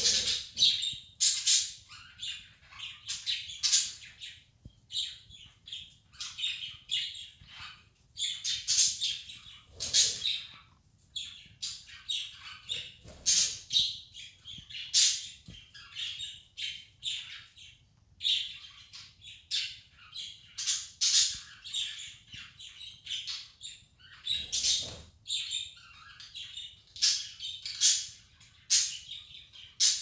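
A small flock of pet budgerigars chirping and chattering, a dense run of short, high, overlapping calls that goes on without a break.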